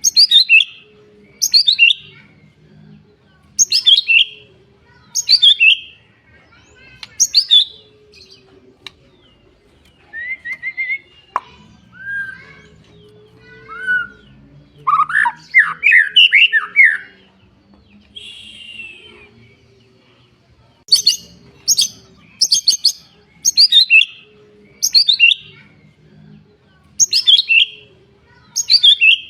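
A songbird singing sharp, falling chirps over and over, about one a second. Near the middle this gives way to a varied run of lower whistled and warbled notes, then the repeated chirps come back.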